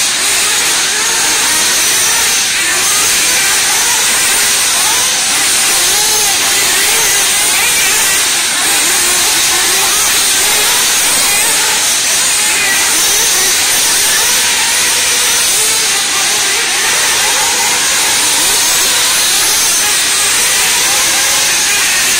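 Radio-controlled cars running on an indoor off-road track, their motors whining up and down in pitch with the throttle, over a steady hiss.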